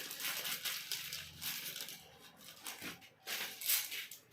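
Colour pens and their packaging being handled: irregular rustling, crinkling and small clicks, thinning out after about two seconds.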